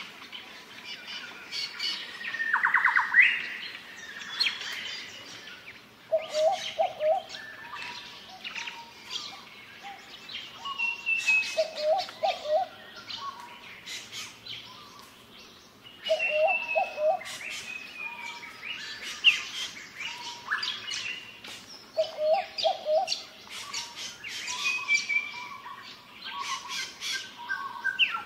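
Several birds calling together in a forest: one repeats a low three-note whistled phrase every five or six seconds, while others give high chirps and short descending trills.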